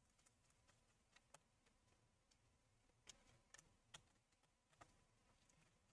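Near silence with about six faint, scattered small clicks, from a Torx screwdriver and small parts being handled on the MacBook Air.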